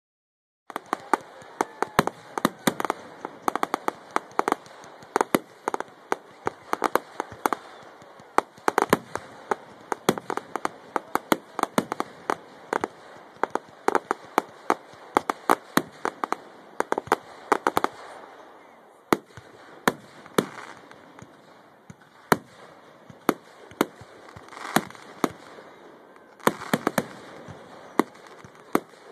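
Aerial fireworks display: a rapid barrage of sharp shell bursts, several bangs a second, thinning after about eighteen seconds to scattered bangs with patches of crackling.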